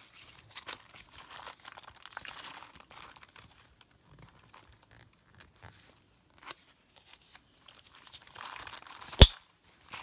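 Paper and plastic inserts rustling and crinkling as they are handled, with scattered small clicks. A single sharp click a little past nine seconds in is the loudest sound.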